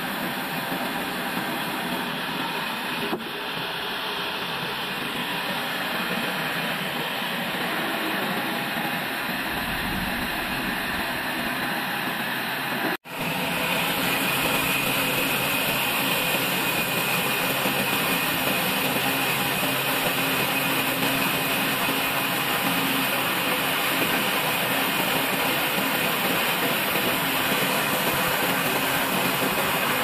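Old bandsaw sawmill running steadily. About halfway through, the sound breaks off for an instant and comes back louder, with a steady high hiss as the band blade saws lengthwise through a log.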